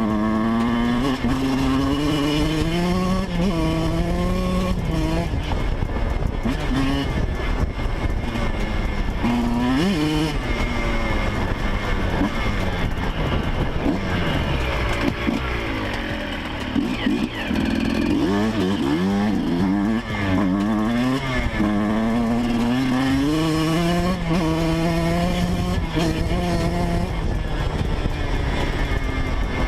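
Yamaha YZ125's two-stroke single-cylinder engine being ridden hard, its pitch climbing and dropping again and again as it revs through the gears, with a short ease-off about halfway through.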